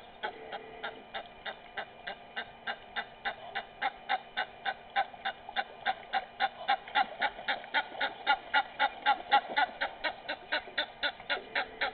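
A bird calling a long, fast, even series of harsh notes, about four a second, growing louder and then easing slightly near the end.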